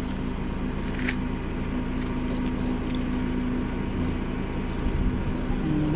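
Steady low hum of a running motor, with a short sharp sound about a second in.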